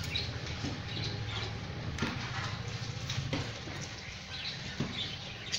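Hands washing crab pieces in a steel plate of water: light splashing with scattered clicks and scrapes of the shell against the plate, over a low steady hum.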